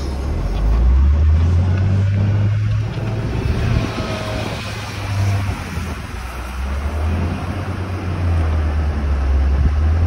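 Heavy diesel engines of farm machinery, a wheel loader and a tractor, running close by. The deep engine note shifts up and down a few times as the machines work.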